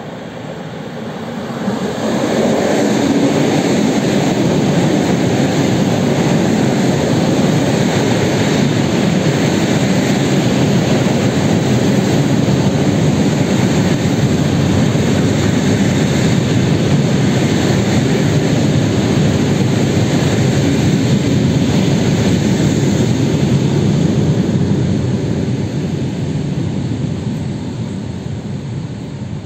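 Electric commuter train passing close by at speed: a loud, steady rushing of wheels on rail and air that builds sharply about two seconds in, holds, and fades near the end.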